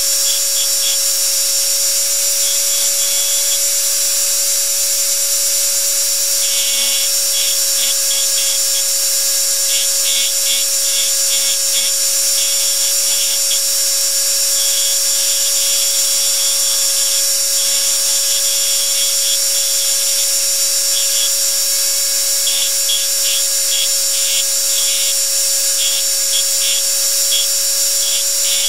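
Power engraving machine running steadily with a constant hum and high whine, while its handpiece cuts into the coin's metal in repeated spurts of rapid ticking that start and stop throughout.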